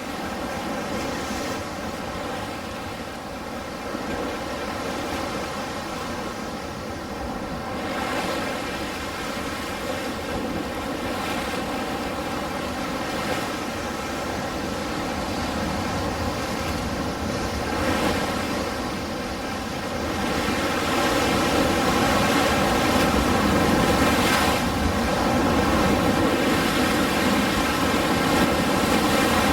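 Ocean surf washing in a steady rush, swelling louder about twenty seconds in, with a faint constant hum of fixed tones underneath.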